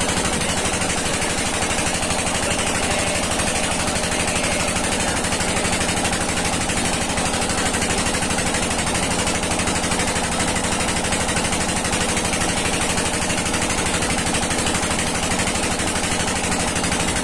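Engine of a small wooden river boat running steadily under way, a loud, rapid, even chugging.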